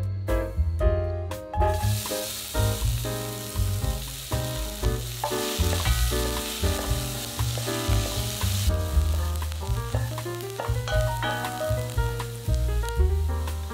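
Diced onions sizzling in hot oil in a pot and being stirred with a wooden spatula. The sizzle starts about two seconds in, is loudest for the next several seconds, then drops to a lighter sizzle.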